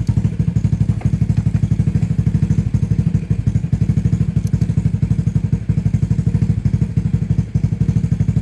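Honda Fusion scooter's liquid-cooled single-cylinder four-stroke engine idling steadily just after starting first time, an even, rapid putter.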